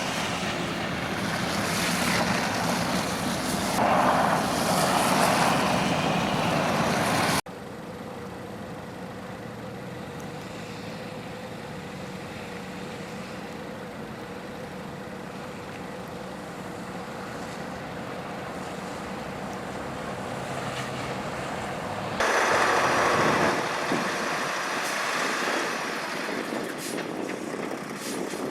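Vehicle and road noise on a snowy highway: a loud, even rush that cuts off suddenly about seven seconds in to a quieter steady rumble with a faint hum, then jumps back to a loud rush near the end.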